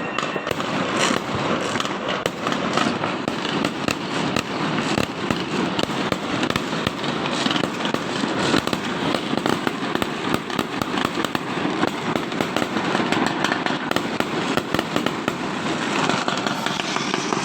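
Fireworks and firecrackers going off densely without pause: a continuous crackle of many overlapping pops and bangs.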